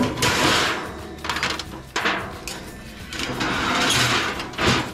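Disposable aluminium drip tray crinkling as it is pushed into place in a gas barbecue, with metal knocks from the grill grates being lifted and set back down with tongs.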